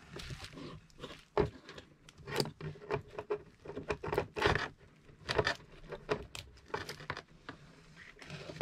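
A Canon Selphy CP1300's power adapter and coiled power cord being handled in a cardboard box. Irregular light clicks, taps and rustles come from the cord and its plugs.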